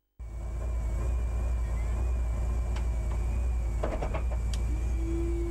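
Mitsubishi Lancer Evolution IX rally car's turbocharged 2.0-litre four-cylinder idling steadily with the car standing still, heard from inside the cabin. A few sharp clicks come in the middle, and a steady tone sounds for about a second near the end.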